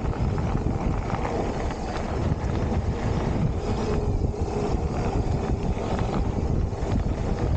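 Wind rushing over the microphone, with the rumble and scattered clatter of a Specialized Stumpjumper mountain bike's 2.8-inch plus tyres rolling over a dirt trail.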